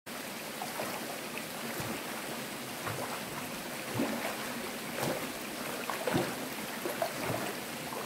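Mountain stream water flowing with a steady rush, broken every second or so by small splashes and gurgles from a person floating in the pool.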